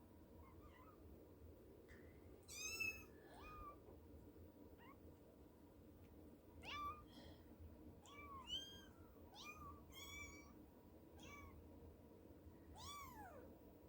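Young kitten mewing: a string of about ten short, high-pitched mews, each rising and falling in pitch, spaced irregularly.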